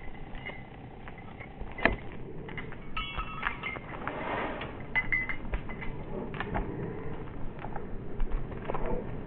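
A dog's collar and lead fittings jingling and clinking in scattered light taps as the dog prances about on the leash, with scuffs on the tarmac.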